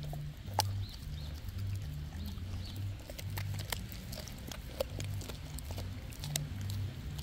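Dog eating raw lamb shank and ground beef: wet chewing, licking and smacking, with many sharp irregular clicks of teeth and jaws. A low pulsing hum runs underneath.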